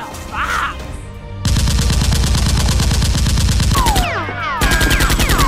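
Two long bursts of rapid automatic gunfire sound effect, the first starting about a second and a half in and the second near the end, with a few short falling tones between them. Background music plays underneath.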